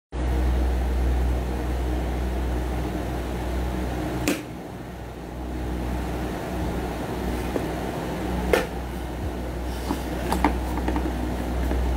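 A steady low machine hum, with a sharp click about four seconds in, another a little past eight seconds, and several small taps near the end as the phone recording is handled.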